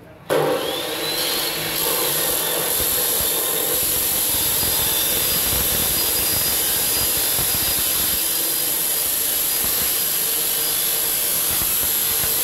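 Hitachi abrasive cut-off saw switched on about a third of a second in, its motor winding up with a rising whine, then running steadily as the abrasive wheel grinds through a square hollow steel tube.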